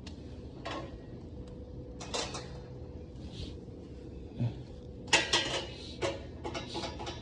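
Metal parts clanking and rattling: a few scattered knocks and a louder quick clatter about five seconds in, over a faint steady hum.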